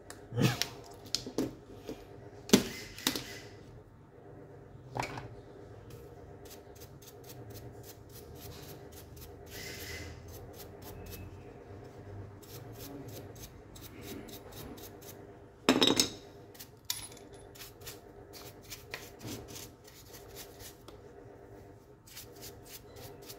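Plastic parts of a Makita HP347D cordless drill being handled: scattered clicks, light rubbing and taps from the trigger switch and housing. There are several sharp clacks in the first five seconds and a louder cluster about sixteen seconds in.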